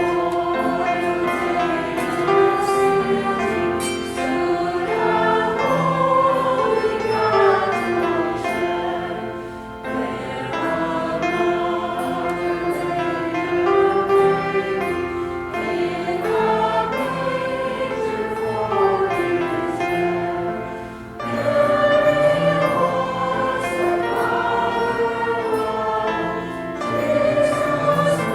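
A choir singing in parts, in long phrases with brief breaths between them about ten and twenty-one seconds in.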